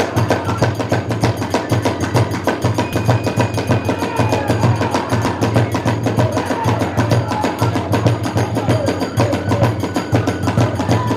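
Kagura hayashi ensemble playing: drums and hand cymbals beating a fast, unbroken rhythm.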